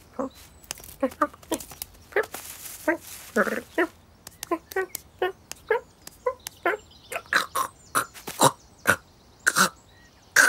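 A cartoon cat's vocal effects, voiced by a person: a quick string of short chirps, grunts and mews as the cat plays, with a burst of rustling about two seconds in and small clicks between the calls.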